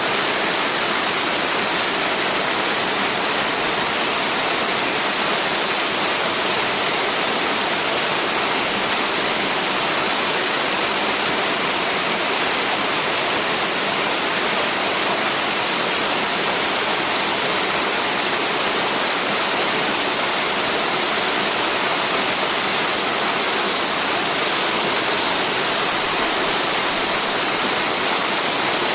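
Waterfall rushing, a steady, even hiss of falling water with little deep rumble.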